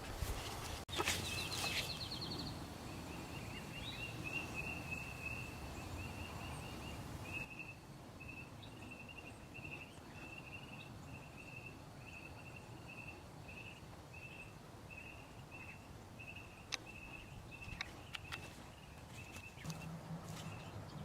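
A small animal's high chirp repeated over and over at one pitch, at first in quick runs and then about twice a second, over outdoor background noise, with a few sharp clicks near the end.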